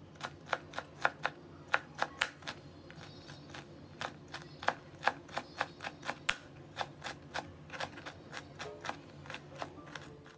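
Large kitchen knife chopping shredded banana blossom florets on a cutting board: quick, even chops, about four a second.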